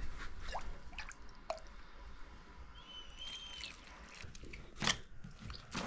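Water scooped from a steel bowl with a metal cup and poured into flour for dough, dripping and splashing, with a few sharp knocks, the loudest near the end.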